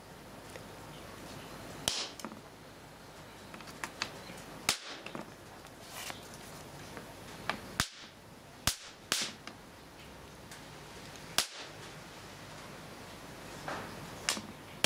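Capacitor bank discharging in sharp electrical cracks of sparking, about a dozen at irregular intervals, each leaving a brief echo.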